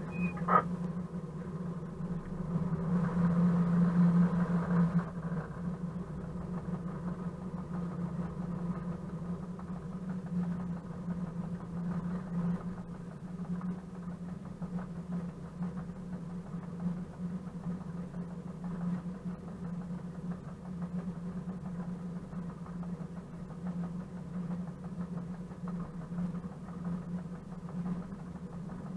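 Class 742 diesel-electric locomotive's ČKD six-cylinder diesel engine running steadily while under way, heard from the walkway beside the engine hood. It swells louder for a couple of seconds a few seconds in.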